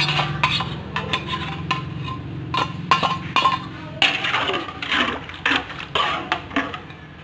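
Metal spatula scraping and clinking against a wok while a thick peanut sauce is stirred, a run of quick irregular clicks over a steady low hum.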